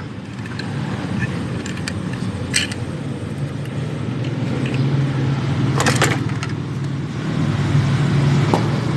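A steady low engine hum, with a sharp click about two and a half seconds in and another about six seconds in.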